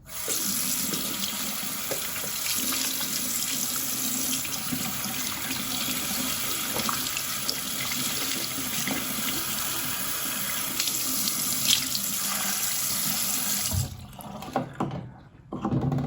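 Water running steadily from a tap into a sink, then turned off suddenly near the end, followed by a few light knocks.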